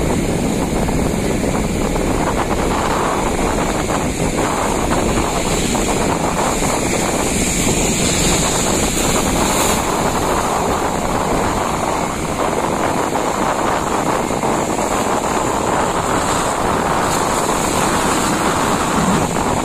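Strong wind buffeting the microphone over the steady wash of rough sea waves, loud and even throughout.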